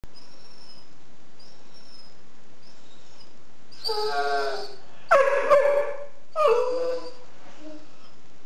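A sighthound giving three drawn-out whining howls in a row, starting about four seconds in; the middle one is the loudest.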